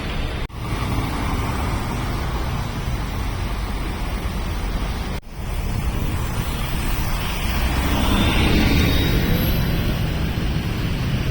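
Harsh noise music: a loud, dense, unbroken wall of noise, with two sudden momentary dropouts, about half a second in and about five seconds in.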